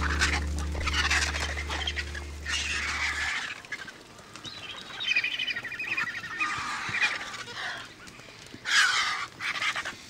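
Griffon and black vultures squabbling at a carcass, giving harsh calls in rough repeated bursts, loudest near the end. A low steady tone runs under the first three seconds and stops abruptly.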